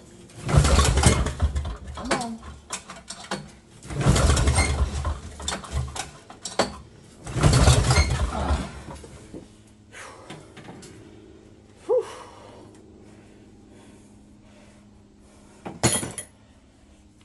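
Three hard pulls on the recoil starter of a 1968 Eaton Viking snowmobile's single-cylinder two-stroke engine, each cranking it over for about a second and a half without it catching. Then a couple of short clanks.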